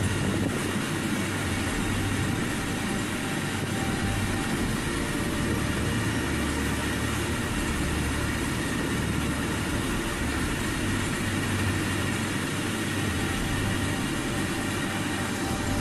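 Very long freight train of open box wagons rolling steadily past, a continuous rumble of wheels on rails.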